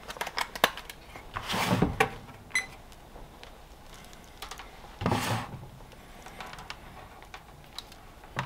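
Light scattered clicks and taps of a digital multimeter and its test leads being handled on a workbench, with two louder rustles, about a second and a half in and about five seconds in.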